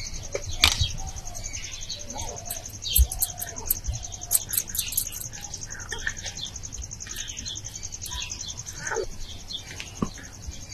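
Birds chirping over a steady, high, fast-pulsing insect trill, with a few light knocks.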